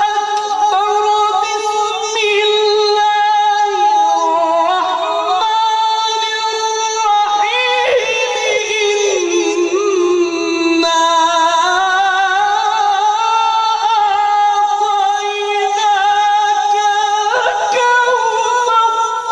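A male Quran reciter chanting in a melodic, drawn-out style, holding long ornamented notes that rise and fall slowly in pitch.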